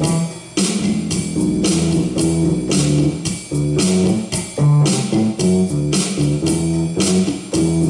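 Rock music: electric guitar lines over a bass guitar, with regular high, hissing hits on the beat, roughly one or two a second.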